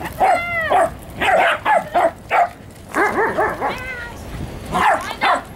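Several small dogs giving a string of short, high-pitched yaps and whines, one after another with brief gaps.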